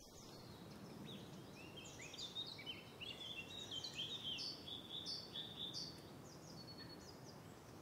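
Birds singing, a run of short, quick high chirps, many sliding down in pitch, over a faint background hiss; the song dies away near the end.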